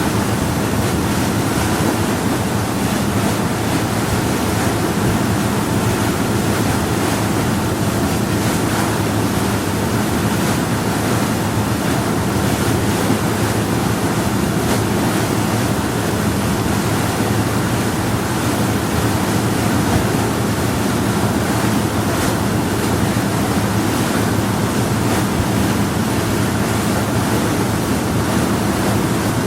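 Power yacht under way at a steady speed: a constant engine drone under the rush of water and wind along the hull, unchanging throughout.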